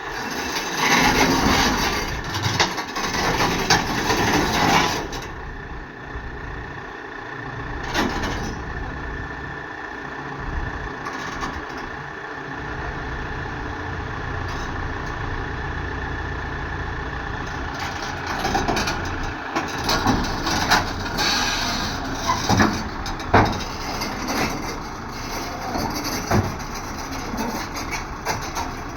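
Hyundai 140LC-9 crawler excavator's diesel engine running steadily, with a loud rushing stretch in the first few seconds and scattered knocks and clatter in the last third.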